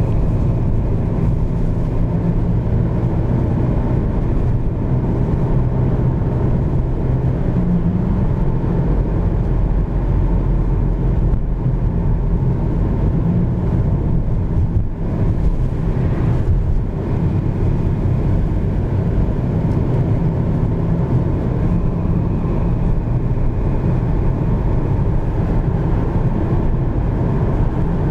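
Car engine and tyre noise heard from inside the cabin while driving on a paved road: a steady low hum with road rumble.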